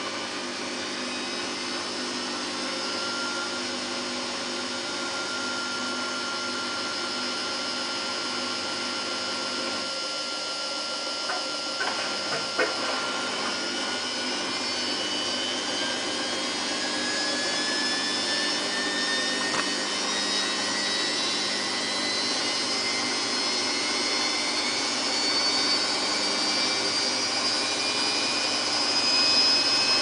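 Samsung WF8804RPA front-loading washing machine in its final spin, the drum speeding up with a motor whine that rises steadily in pitch and grows slightly louder. A few short clicks come about twelve seconds in.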